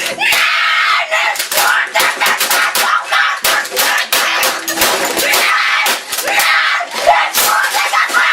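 A boy screaming in a rage, cutting in suddenly, with many sharp knocks throughout, typical of a keyboard being smashed during a tantrum.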